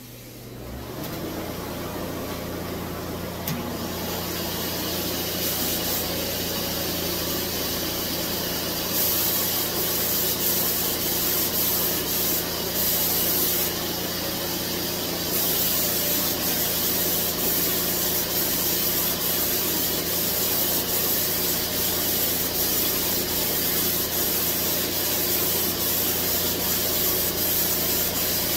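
Fuji Q4 Platinum HVLP turbine starting up about a second in and then running with a steady hum, while air and clear lacquer hiss from the spray gun, louder in stretches as the trigger is pulled.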